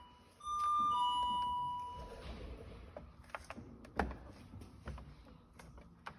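A two-tone electronic chime, a higher note followed by a lower one, sounds once about half a second in and rings out over about a second and a half. Scattered light clicks and taps follow, with a sharper knock about four seconds in.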